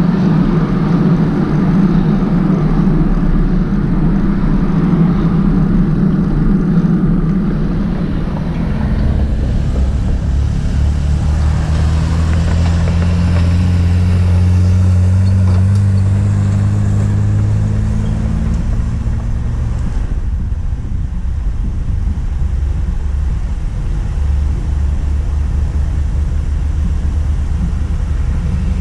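Road traffic with a steady low rumble. From about nine seconds in, a motor vehicle's engine comes up, its pitch rising slowly, and it drops away at about twenty seconds.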